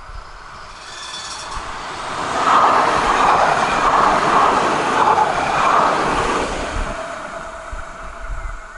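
Light-rail train passing close by on its rails. It grows louder, holds loudest for about four seconds, then fades away.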